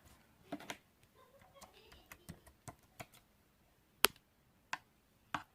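Scattered sharp clicks and taps at irregular intervals, one louder click about four seconds in.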